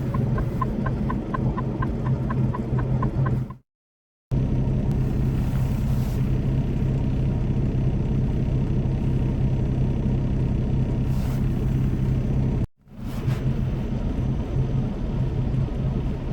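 Semi-truck engine and cab noise: a steady low rumble. For the first few seconds there is a quick, even ticking, about three ticks a second. The sound cuts out briefly twice, at about four seconds and again near thirteen seconds.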